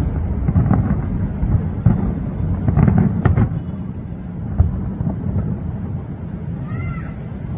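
Aerial fireworks shells bursting far off: a continuous low rumble of overlapping booms, with a few sharper bangs about two, three and four and a half seconds in.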